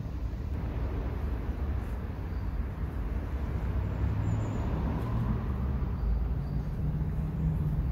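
Road traffic on the bridge overhead: a steady low rumble of car engines and tyres, with a faint engine note about four seconds in.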